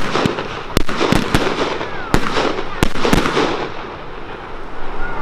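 Fireworks display: a quick series of sharp shell bursts in the first three seconds, with crackling between them. After that the bursts stop and the crackle tails off.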